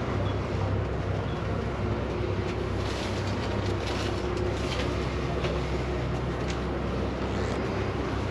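A passenger boat's engine running with a steady low hum, with a few short knocks of footsteps on the deck from about three seconds in.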